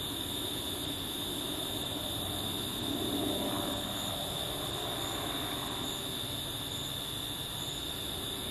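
Steady low drone of a distant aircraft, which the uploader takes for a police helicopter. It swells a little about three seconds in, over a constant high-pitched whine.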